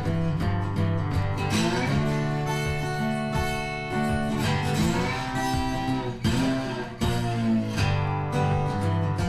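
Background music with guitar over steady low bass notes.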